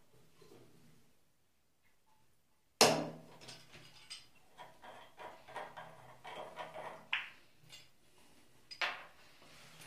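Metal tap parts and tools being handled: a sharp knock about three seconds in, then a string of small clicks and clinks, and another knock near the end.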